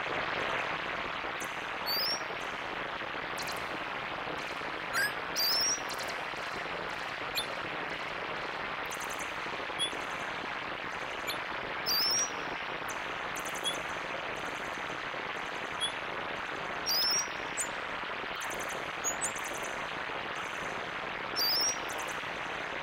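Elektron Digitone synthesizer playing synthesized nature sounds: a steady rushing noise like running water, with short high chirps like birdsong. Brief bright crackling bursts come every few seconds.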